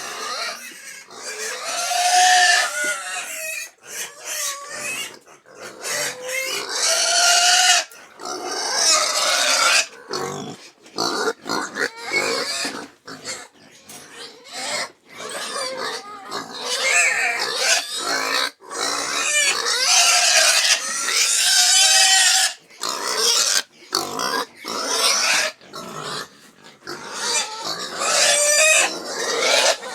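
Pigs squealing, with loud, high-pitched, overlapping calls that keep coming with only brief pauses.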